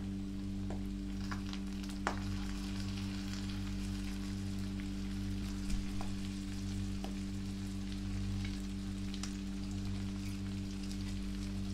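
Sisig sizzling in a hot cast-iron pan on a gas burner: a steady crackle with scattered sharp pops, over a steady low hum.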